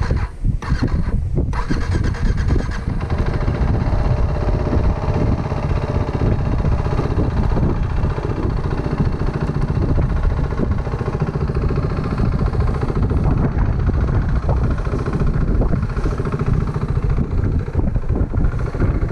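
Motorcycle engine running steadily while riding, with wind rumbling on the microphone.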